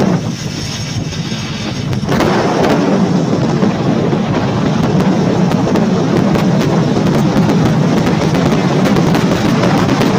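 Wind buffeting the microphone of a camera carried on a moving vehicle along a road, a heavy rumbling, crackling rush of noise that grows louder about two seconds in as the speed picks up.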